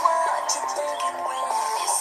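Mobile phone ringtone: a synthesized melody of short stepped notes played through the phone's small speaker.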